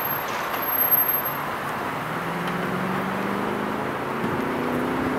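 Steady road traffic noise, with one vehicle's engine pulling away, its pitch climbing from about two seconds in.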